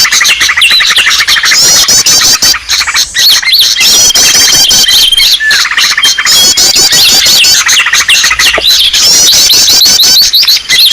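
Loud, dense chorus of many small birds chirping, trilling and twittering all at once: a bird-lure (pikat) recording made to draw small birds in. The same sequence of calls repeats about every six seconds.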